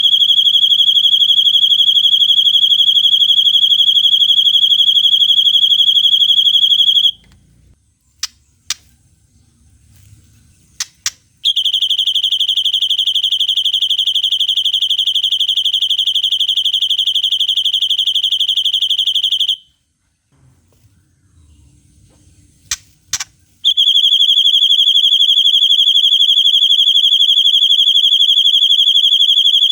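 White-rumped shama (murai batu) giving the long 'cililin' trill: a very fast, even, high trill on one pitch, held seven to eight seconds at a time, three times. Short sharp chips sound in the two gaps between the trills.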